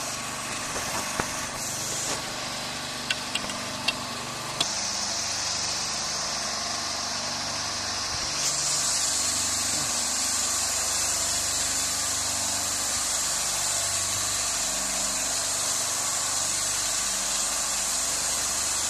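Steady running noise of CNC woodworking machinery, a high hiss over a low hum, which gets louder about eight seconds in. A few sharp clicks come in the first few seconds.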